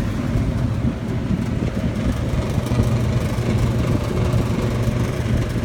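Walk-in freezer refrigeration system running after its repair and recharge with R-404A: a steady hum with fan noise, the system holding the box at about 13 degrees.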